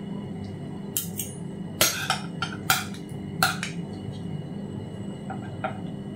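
Metal spoon and fork clinking against a steel pot and a plate as rice noodles are served: a quick run of about eight clinks between one and four seconds in, then two faint ones near the end.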